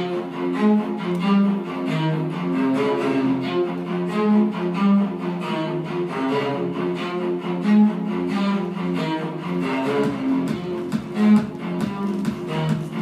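Instrumental music with low held notes that change pitch every second or so, played for a contemporary dance.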